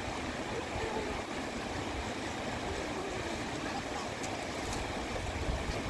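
Steady rush of flowing water, an even wash of noise with no clear strikes or rhythm.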